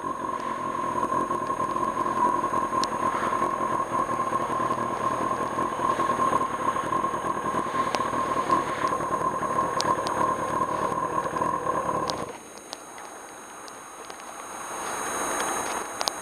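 Riding noise of a 1995 Kawasaki Ninja ZX-6R motorcycle: engine and wind at a steady pace with a steady high whine. It cuts off abruptly about twelve seconds in, leaving a much quieter background.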